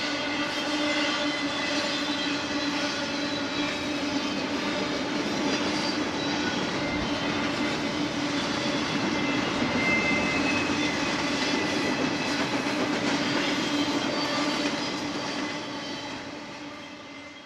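Double-stack intermodal freight train's well cars rolling past on steel wheels, a steady rolling noise with several steady tones ringing over it, fading out near the end as the last cars go by.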